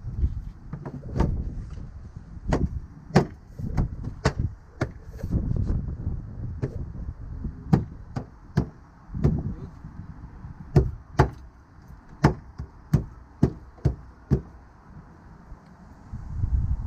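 Hard plastic knocks, clicks and thuds from a Volvo VNL truck's air cleaner housing as a new air filter is pushed in and the housing cover is fitted, with sharp irregular clicks about once or twice a second.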